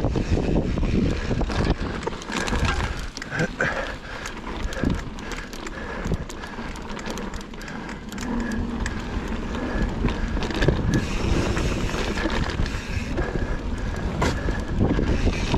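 Mountain bike being ridden over a rough dirt trail: tyres rolling over dirt with frequent clattering knocks and rattles from the bike, and wind buffeting the microphone.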